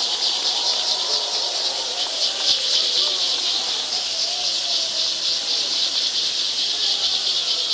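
Many parachico dancers shaking their chinchines, lacquered gourd rattles, together: a dense, continuous shimmering rattle, with a crowd's voices wavering faintly underneath.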